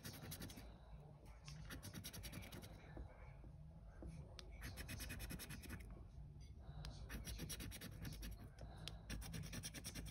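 Scratchcard's latex coating being scraped off with a flat black scraper: several bursts of quick back-and-forth strokes with short pauses between them.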